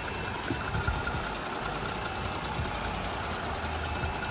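A Jeep's 3.6-litre Pentastar V6 idling steadily, heard close up with the hood open.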